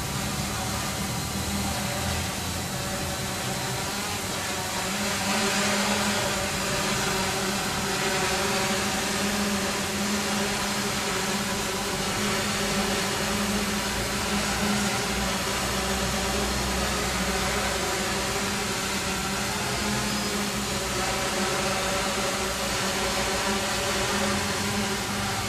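Quanum Venture quadcopter's brushless motors and propellers whirring steadily in flight as it comes down to hover low over the floor, growing a little louder about five seconds in.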